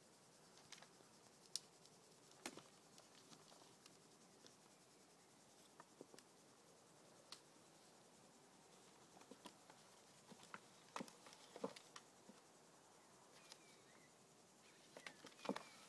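Near silence broken by faint, scattered clicks and taps of a puppy's claws and paws on a plastic sun lounger, coming in little clusters about eleven seconds in and again near the end.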